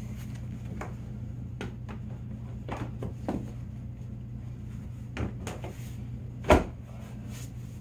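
Ski-Doo snowmobile seat being handled: a few light clicks and knocks, then one loud thump about six and a half seconds in as the seat is pressed down into place. A steady low hum runs underneath.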